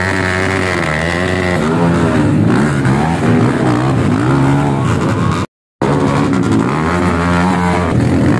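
Trail motorcycle engine revving on a hill climb, its pitch rising and falling with the throttle. The sound cuts out for a moment about five and a half seconds in, then the revving resumes.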